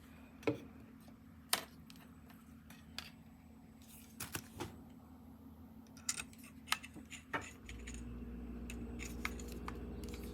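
Scattered small clicks and knocks of the frother's plastic whisk attachment being fitted and handled. About seven and a half seconds in, the handheld milk frother's small motor switches on and runs with a steady hum.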